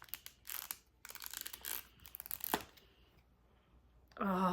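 Crinkling plastic wrapping of a wax melt sample being handled and opened, in a series of short rustles that stop about two and a half seconds in. A woman's voice begins near the end.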